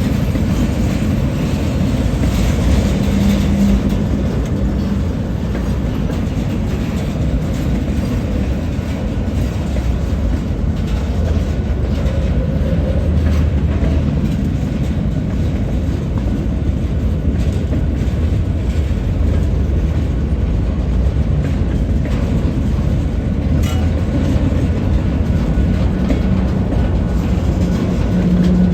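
EMD GP38 diesel locomotive's 16-cylinder two-stroke engine running loudly with a steady deep rumble, and a low hum that swells a few seconds in and again near the end.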